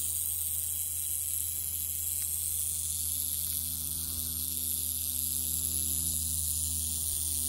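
Northern Pacific rattlesnake rattling its tail: a steady, unbroken high buzz, the rattlesnake's defensive warning. A faint low hum lies underneath.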